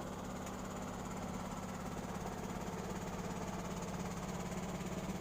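A small engine running steadily at idle with a fast, even chugging, growing slightly louder.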